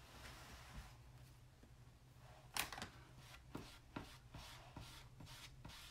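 Faint taps and scrapes of a small plastic squeegee dabbing and spreading chalk paste across a silk-screen transfer, over a low steady hum; the clearest tap comes about two and a half seconds in.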